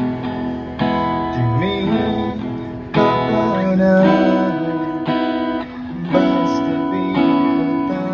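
Acoustic guitar strummed in chords about once a second, played through a small amplifier, with a man singing along.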